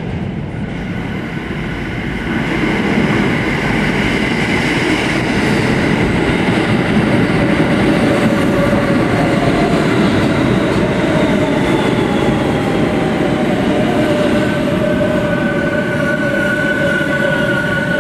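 New York City subway train pulling into a station: a rumble of wheels on rails that grows louder about two to three seconds in as the cars arrive alongside, then runs steadily. In the second half, whining tones slide downward as the train brakes to a stop.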